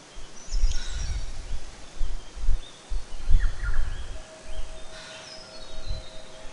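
Irregular low thuds and rumbles, with a few faint bird chirps in the background; a soft, held chime-like tone begins about four seconds in.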